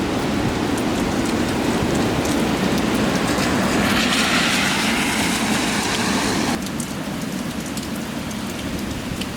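Strong gusty wind and heavy rain, with the wind buffeting the microphone in a steady rumble. About four seconds in, a louder rushing hiss swells up; it cuts off suddenly about two and a half seconds later.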